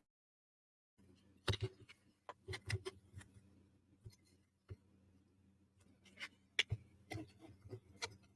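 Small wooden puzzle-box parts clicking and tapping as they are handled and fitted together: an irregular series of light knocks, starting about a second in.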